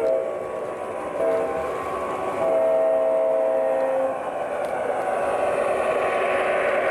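Model diesel locomotive's electronic sound system (MTH Protosound 2) sounding its horn: the end of one blast, a short blast about a second in, then a longer blast lasting about a second and a half. After that the recorded diesel engine sound and the wheels rolling on the track carry on, growing a little louder as the locomotive passes close.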